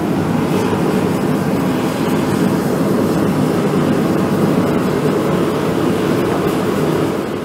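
Gas forge burner freshly lit and running, giving a loud, steady, low rushing noise of burning gas.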